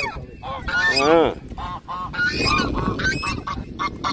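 Domestic geese honking: a string of short calls in quick succession, with one longer call that rises and falls about a second in.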